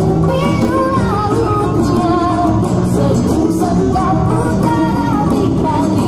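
Loud live music for a Jepen dance, the Malay dance of East Kalimantan: a wavering sung melody over plucked-string accompaniment, playing without a break.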